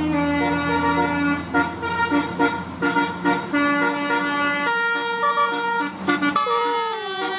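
Bus telolet horn, a multi-tone air horn, playing a quick melody of short pitched notes over a low engine rumble. Near the end the notes slide downward like a siren.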